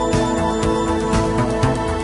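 Background music with held keyboard chords and a steady beat.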